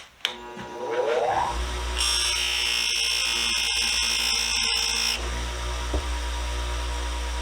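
Electric bench buffer switched on with a click and spinning up with a rising whine, then running with a steady hum. From about 2 s to about 5 s a metal screwdriver part is pressed against the spinning wheel, adding a loud high hiss.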